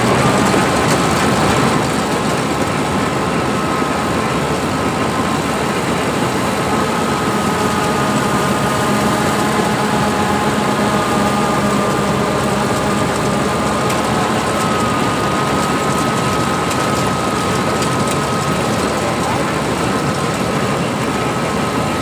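Rice combine harvester running steadily as it cuts rice, heard from the driver's seat: a dense, even engine and machinery noise with a steady high whine.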